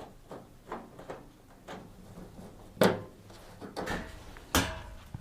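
Clunks and knocks from the dryer's side panels being lifted off their hooks and handled: several light taps, then two louder clunks, one near the middle and one near the end.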